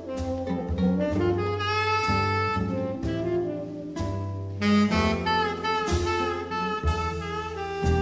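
Small jazz combo playing a ballad: a lead melody instrument holds long notes over piano, guitar, double bass and drums.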